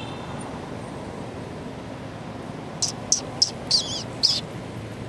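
A quick run of five short, high chirps, one of them wavering in pitch, from about three to four and a half seconds in, over a steady low rumble of distant road traffic.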